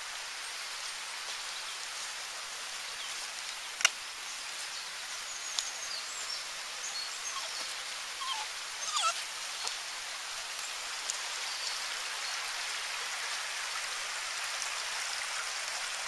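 Steady rushing of a woodland stream, growing a little louder toward the end, with a sharp click about four seconds in and a few short, high chirps in the middle.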